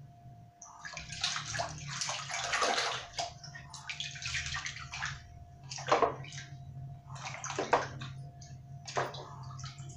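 Hands swishing and splashing water in a basin while rinsing a small brass item clean, with three sharper splashes in the second half. A faint steady hum runs underneath.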